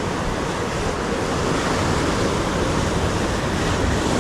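Ocean surf washing onto the shore as swells roll in: a steady rushing hiss of breaking water.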